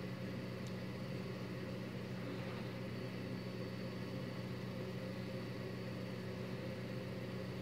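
Steady low hum with a faint high whine and a haze of hiss: unchanging background room noise. No separate sound of the hook or yarn stands out.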